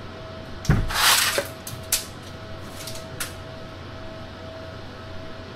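Steel tape measure being handled: a thump, then the blade rasping as it runs for about half a second, followed by a few sharp clicks. A faint steady hum sits underneath.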